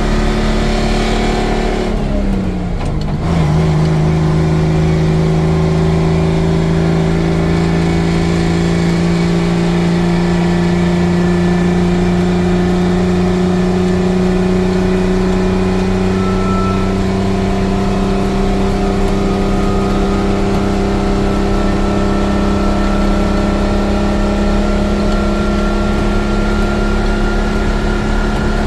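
Detroit Diesel engine of a 6x6 International Harvester truck pulling under way. About two seconds in, its note dips and drops in pitch as on a gear change, then rises slowly and steadily as the truck gains speed.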